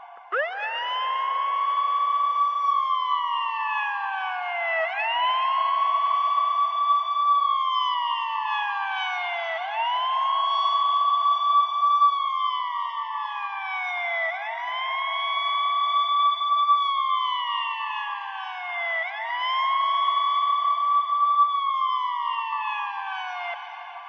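Ambulance siren sounding a slow wail: each cycle sweeps quickly up, holds its top pitch for a moment, then slides slowly down, repeating about every four to five seconds, five times. It fades near the end.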